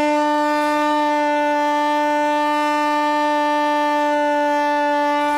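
RC airplane's motor and propeller running at a steady throttle, an even droning tone that holds its pitch.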